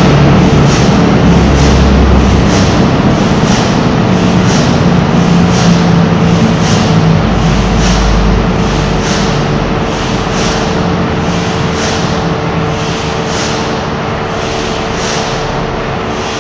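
The H.C. Ørsted engine, a 1,400-tonne 1933 power-plant diesel, running with a steady, heavy rhythmic beat of about one and a half beats a second over a constant hum, gradually getting quieter.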